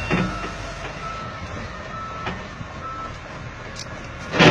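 Wheel loader's reversing alarm beeping about once a second over the low running of a diesel engine. A sudden loud sound comes right at the end.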